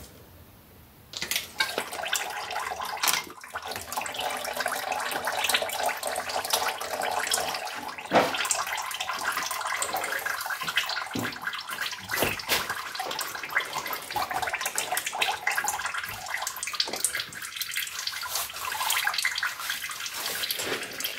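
Old 75W-90 gear oil draining in a thin stream from the Audi A4 B7 manual transmission's drain hole and splashing below, a steady pouring, spattering sound that starts about a second in.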